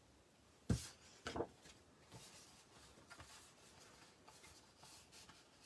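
A light knock about two-thirds of a second in, a smaller knock soon after, then faint rustling as a strip of cardstock is picked up and handled.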